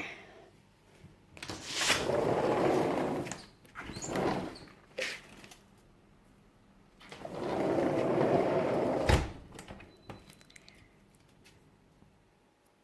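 Hot water flung into −17 °C air: two rushing splashes, each about two seconds long and some five seconds apart, with a sharp knock right after the second.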